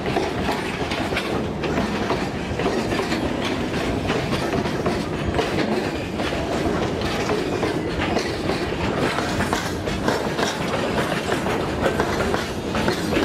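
Loaded curtain-sided metre-gauge freight wagons rolling past, their steel wheels clacking over rail joints above a steady rumble.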